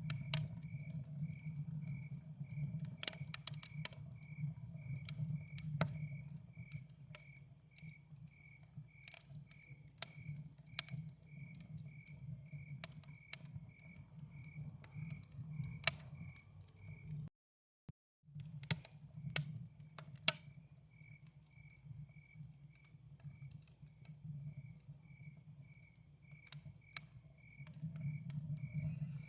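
Campfire crackling with irregular sharp pops and snaps over a low steady rumble, while a cricket chirps steadily about twice a second. The sound cuts out for about a second past the middle.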